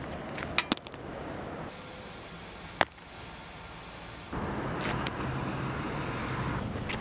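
Outdoor background noise with a few sharp clicks, two close together near the start and one about three seconds in; the background grows louder about four seconds in.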